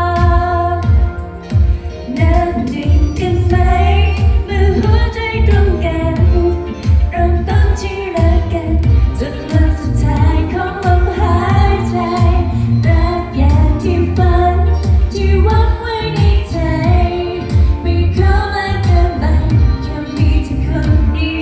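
A woman singing a Thai pop song live through a sound system, over amplified band backing with a heavy, steady bass.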